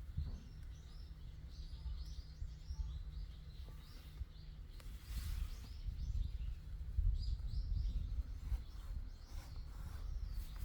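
Small birds chirping repeatedly over a steady low rumble, with a brief hiss about five seconds in.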